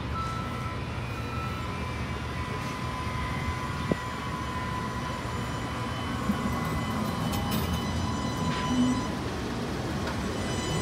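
Electric streetcar rolling slowly past on its rails: a steady low running noise with a thin, steady whine above it, and a single sharp click about four seconds in.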